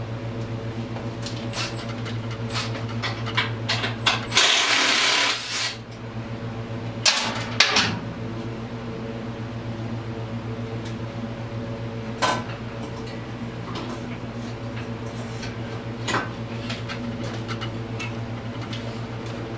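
Metal hand tools clanking and scraping on an ATV engine as its exhaust is taken apart. A harsh burst of rattling noise about four seconds in lasts roughly a second, and there are sharper clanks around seven and twelve seconds. A steady low hum runs underneath.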